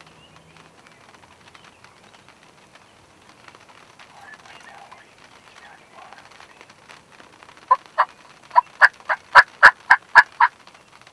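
Wild turkey yelps: a quick series of about eleven loud, evenly spaced notes, roughly four a second, starting about three-quarters of the way in and growing louder toward the middle of the run.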